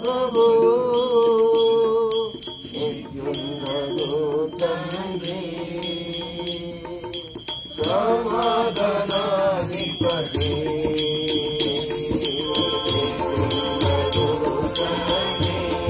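Worship song: a voice singing over steady rhythmic jingling hand percussion, with hand-drum beats joining about ten seconds in.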